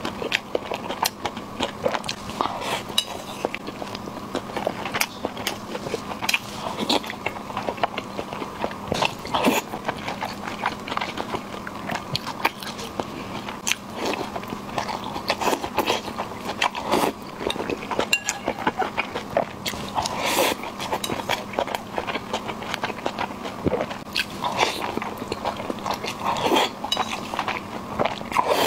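Close-miked chewing and biting as a person eats braised meat-stuffed green peppers with rice, giving many short, irregular mouth clicks and smacks over a faint steady hum.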